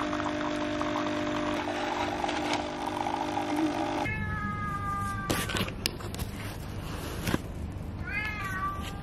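Krups coffee machine humming steadily as coffee pours into a mug, stopping about four seconds in. A domestic cat then meows twice, a falling meow right after the machine stops and a rising-and-falling one near the end, with a few light clicks between.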